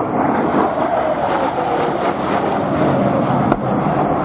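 Single Pratt & Whitney F135 turbofan of an F-35 Lightning II flying overhead: loud, steady jet noise, with a faint tone gliding slightly lower in the first half. A brief sharp click comes near the end.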